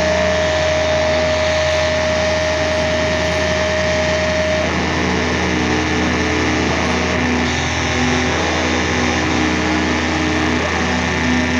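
Loud, heavily distorted amplified guitar and bass drone from a live doom metal band. A high held feedback tone cuts out about four and a half seconds in, after which slow, sustained low notes shift every second or two.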